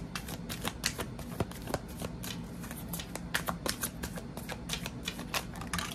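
A deck of stiff, glossy tarot cards being hand-shuffled overhand: a rapid, irregular run of card clicks and slaps as packets of cards are dropped from one hand onto the other.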